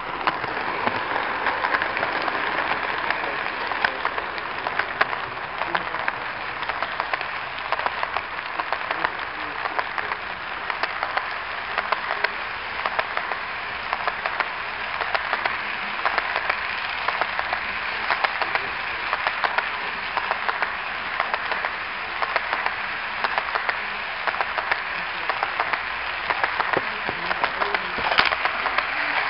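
HO scale model coal train rolling past, with a dense stream of small clicks and rattles from the wheels running over the rail joints.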